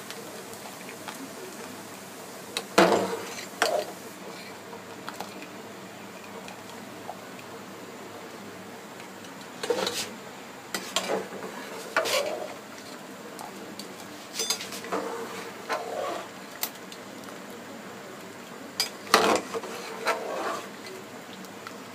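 Metal wire-mesh spider strainer clinking and scraping against an aluminium pot and a steel colander as parboiled potato sticks are scooped out of hot water and tipped out to drain. The clatter comes in four short clusters a few seconds apart, with the loudest about three seconds in and near the end.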